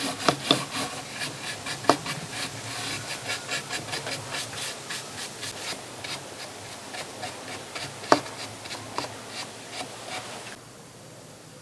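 Paintbrush bristles scrubbing back and forth over a carved mango-wood bowl, brushing on a coat of varnish in quick repeated strokes, with a few sharper knocks of the brush against the wood. The brushing stops shortly before the end.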